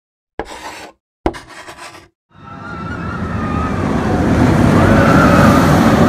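Intro sound effects: two short, sharp hits, then a rumbling whoosh that swells louder over several seconds, with a wavering high tone riding on it near its peak.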